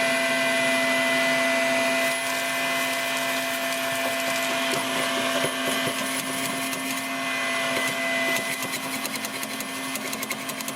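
Vacuum cleaner running steadily, sucking ash and debris out of a pellet smoker's fire pot and grease channel, with a run of small clicks and rattles in the second half.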